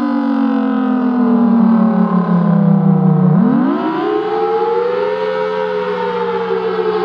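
Federal Signal Thunderbolt 1000BT storm siren sounding loudly. Its pitch sags slowly for about three seconds, swoops sharply back up just after the midpoint, then eases down again. The owner says its slip rings need work.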